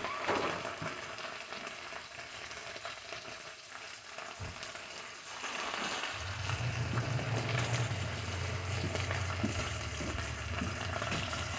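Turkey bacon sizzling as it fries in a hot nonstick pan with melted olive-oil butter spread. About halfway through, a steady low hum comes in under the sizzle.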